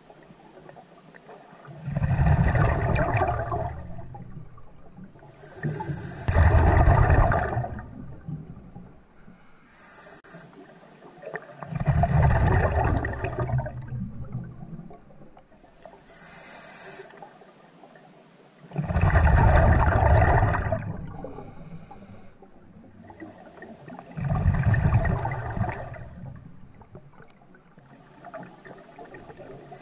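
Scuba diver breathing through a regulator underwater: a short high hiss of the regulator on each inhale, then a long rush of exhaled bubbles, about five breaths in all, roughly every five seconds.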